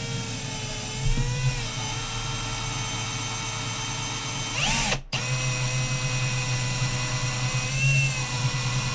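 Cordless drill running, boring a hole through a white PVC pipe fitting. It makes a steady whine that sags slightly in pitch under load, stops briefly about five seconds in, then starts again.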